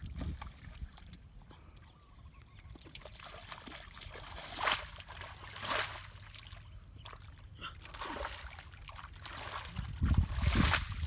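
Bare feet splashing and squelching through shallow muddy water, with two sharper splashes around the middle. Wind rumbles on the microphone near the end.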